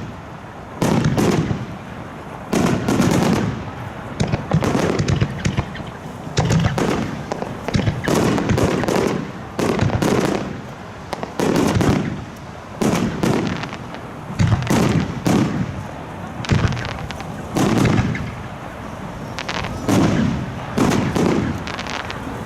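Aerial fireworks shells bursting in quick succession: about a dozen deep booms, one every second or two, each trailing off with crackle and echo.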